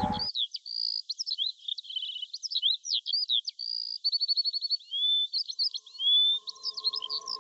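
Songbirds chirping and singing in a busy dawn chorus: quick chirps, slurred whistles and short trills overlapping without a break. A faint steady tone comes in underneath near the end.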